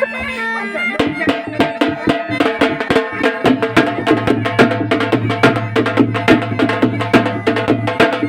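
Instrumental music with a fast, driving beat of sharp percussion strokes over sustained melodic tones; a low held note comes in about three and a half seconds in.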